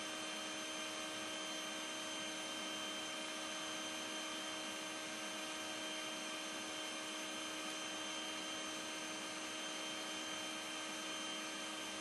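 A steady, unchanging hum with a faint hiss, made of several constant tones. No sound from the pour itself stands out.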